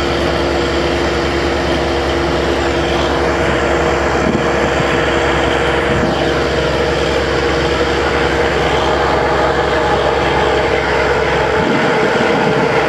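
Borewell drilling rig running steadily: a continuous engine drone with a steady hum. Its deepest rumble drops away near the end.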